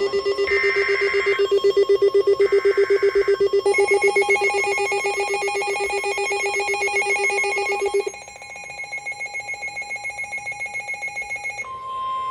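Emergency Alert System alert tones: two roughly one-second SAME header data bursts, buzzy chirping noise, play over a loud pulsing electronic alert tone that pulses about five times a second like a phone ringer. About two-thirds of the way through the lower part of the tone stops, leaving a quieter, higher pulsing. Just before the end a steady single-pitch warning tone, the 1050 Hz weather-radio alarm, begins.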